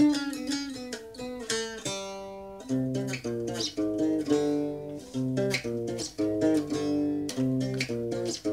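Three-string guitar played solo: single notes ring and fade in a short run, then from about three seconds in a repeating rhythmic pattern of notes over a low bass note.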